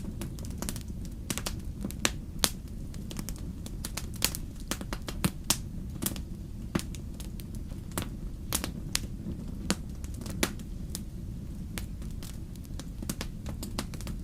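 Wood fire crackling in a fireplace: irregular sharp pops and snaps, a few louder than the rest, over a steady low rumble of the flames.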